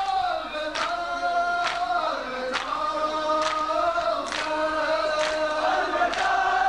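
A group of men's voices chanting a noha, a Shia lament, with long held notes. A sharp beat falls about every 0.9 s and keeps time with the chant.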